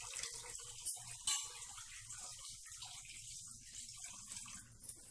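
Basmati rice being washed by hand in a steel bowl under the kitchen tap: water sloshing and splashing into the sink, with two sharp knocks of the bowl about a second in.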